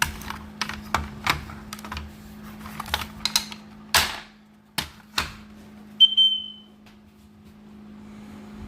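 Sharp plastic clicks and knocks as a smoke detector is handled and opened. About six seconds in comes one loud, high-pitched beep from the detector, under a second long, given off as its residual charge is drained to reset it. A faint steady low hum runs underneath.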